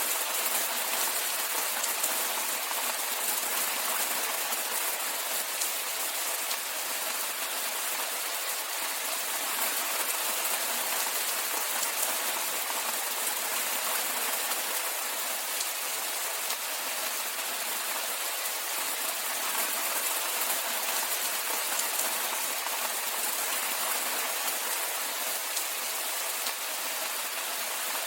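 Steady rainfall: an even hiss of rain with fine patter of drops landing on surfaces, unchanging throughout.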